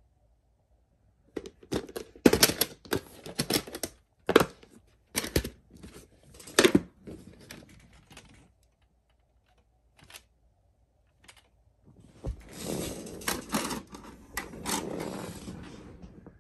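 Sharp plastic clicks and clacks as a VHS cassette is handled and pushed into a VCR. From about twelve seconds in the VCR's loading mechanism runs with a steady whir and clunks as it threads the tape to start playback.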